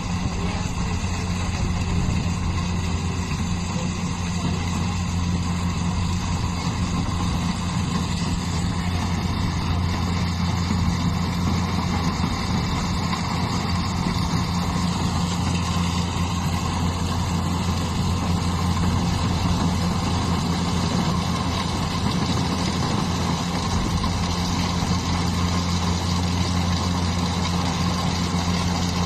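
An engine running steadily at an even speed, a constant deep hum without revving or breaks.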